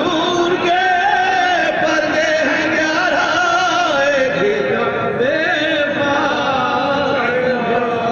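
Soz-khwani: male chanting of an Urdu mourning verse, a slow, drawn-out melody with long wavering held notes and no instruments.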